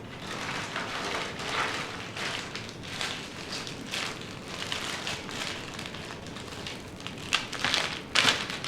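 Plastic packaging crinkling and rustling as it is handled, with a few sharper crackles near the end.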